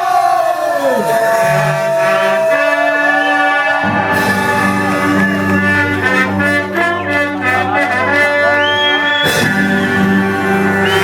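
Ska band music with a brass horn section playing long held and sliding notes; a bass line and beat come in about four seconds in, with a short break near the end before the band comes back in.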